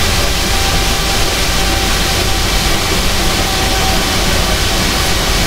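Rubber-tyred MP05 Paris Metro train running through the tunnel, heard from inside the car: a steady, loud rush and rumble of running noise, with a faint steady whine that fades about four seconds in.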